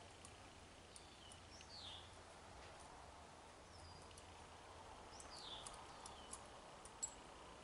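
Near silence: faint room tone, with two quick falling whistle-like calls like a bird's, one about a second and a half in and one past the halfway mark, and a few faint light ticks.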